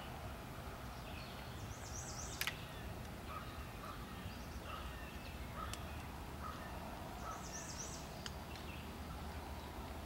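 Songbirds calling: a high, rapid trill about two seconds in and again near eight seconds, with softer chirps in between, over a steady low rumble. A sharp click about two and a half seconds in, with fainter clicks near six and eight seconds.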